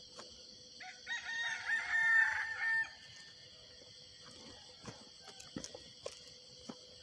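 A rooster crowing once, a wavering call about two seconds long, followed by a few soft steps.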